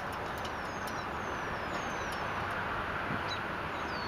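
Birds calling: a string of thin, high whistles, each sliding down in pitch, over a steady background rush. A few faint sharp ticks are scattered through it.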